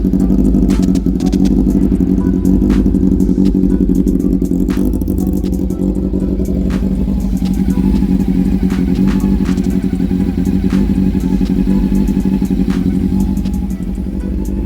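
Honda CB400 motorcycle engine idling, with scattered sharp ticks over the running; this is the rough idle the bike's owner sets out to fix.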